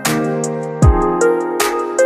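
Background music with a beat: held chords over deep kick-drum hits that drop in pitch, with a cymbal-like crash at the start and another about one and a half seconds in.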